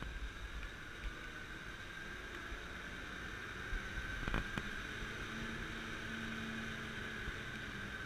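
Scania G490 concrete mixer truck's 13-litre straight-six engine and drum drive running steadily, with a steady high whine over it. A short click about halfway through, and a lower hum comes in just after.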